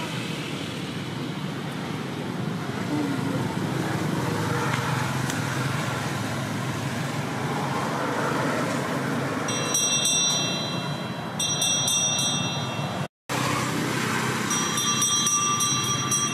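Steady outdoor background rumble and hiss. In the second half a high ringing sound of several steady tones comes in three stretches of a second or two each.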